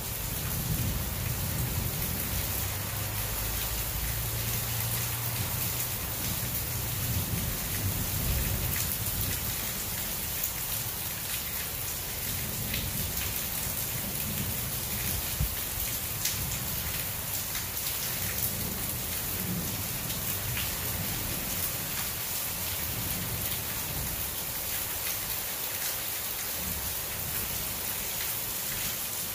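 Heavy thunderstorm rain falling steadily, with scattered sharper drop hits. A low rumble of thunder runs through the first several seconds and dies away.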